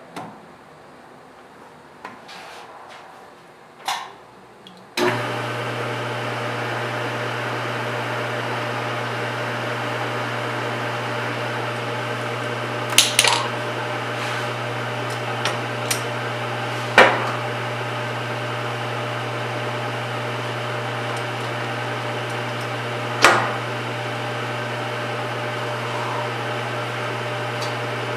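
Metal lathe starting up about five seconds in and then running with a steady motor hum, with a few sharp metal knocks and clicks over it.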